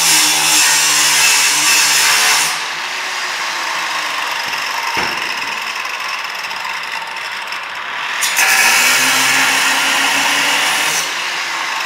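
Electric angle grinder grinding into a metal trailer frame, throwing sparks, for about two and a half seconds. It then spins free off the work with a steady motor whine. About eight seconds in it bites into the metal again, and near the end it eases off once more.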